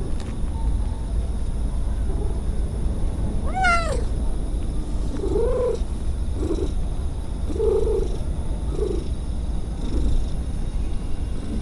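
Stray cat purring while it meows: one higher, falling meow about three and a half seconds in, then four short, lower meows.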